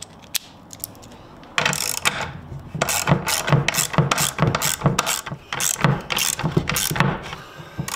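Socket ratchet wrench with an extension driving a lag bolt into the wall. After about a second and a half it clicks in a steady run of short strokes, a few a second.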